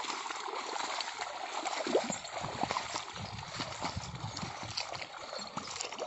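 Muddy water sloshing and splashing as a pair of bullocks drag a heavy levelling board through a flooded paddy field, puddling the mud. Irregular splashes and squelches run through a continuous watery wash.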